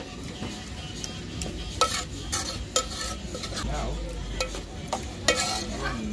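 A metal spoon stirring a thick tomato-and-greens sauce in an aluminium pot. It scrapes through the sauce and knocks against the pot's sides with irregular sharp clinks, over a steady hiss.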